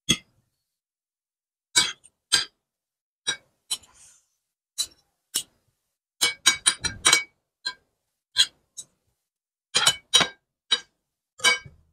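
Metal spoon and fork clinking and scraping against a ceramic plate while mixing spicy instant noodles. The clinks come irregularly, about a second apart, with a quick run of them about six to seven seconds in.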